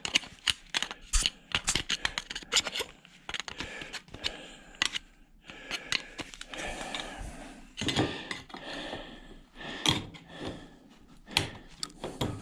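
Hand tools and loose metal parts of a dismantled washing machine motor clinking, tapping and scraping as debris is cleared out and a stuck insert is worked loose. Rapid irregular clicks and taps throughout, with a stretch of scraping about halfway through.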